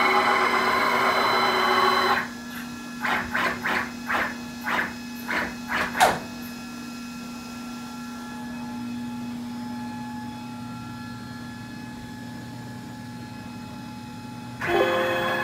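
Stepper motors turning lead screws to drive a DIY CNC router's gantry along its Y axis: a loud whirring with steady whining tones that stops about two seconds in, then about seven short whirs in quick succession, then a low steady hum until the loud whirring starts again near the end.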